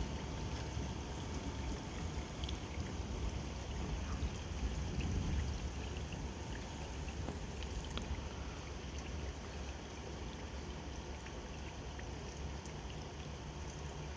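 Steady rain falling, with scattered faint drip ticks over a low rumble that swells briefly about four to five seconds in.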